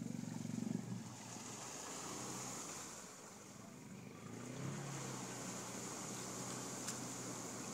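Four-wheeler (ATV) engine running as it wades through a flooded mud hole, with water churning around the tires. The engine eases off a few seconds in and then revs up again about halfway through.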